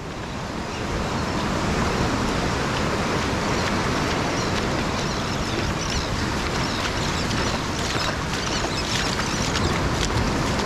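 Steady rush of ocean surf on a rocky shore with wind buffeting the microphone.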